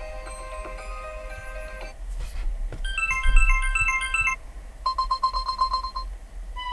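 Asus ZenFone 9 built-in ringtones previewed one after another: four short electronic tunes in turn, each cut off after a second or two as the next starts. The third is a rapid string of beeps on one pitch.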